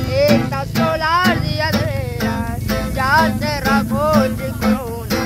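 A young woman singing to a strummed twelve-string acoustic guitar, with steady strokes about twice a second under a melody in her voice.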